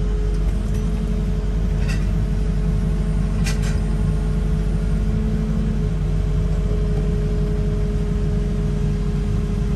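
Cat 308 mini excavator's diesel engine running steadily as the machine works, heard from inside the cab, with a steady whine above the engine. A couple of faint ticks come about two and three and a half seconds in.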